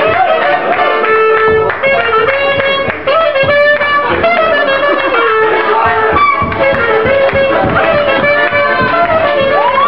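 Live klezmer band playing, a clarinet carrying the melody over the band's accompaniment, with note bends and glides in the lead line.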